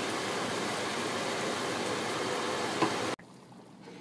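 Steady hissing noise with a single click near the end, cut off abruptly about three seconds in, leaving a much quieter background.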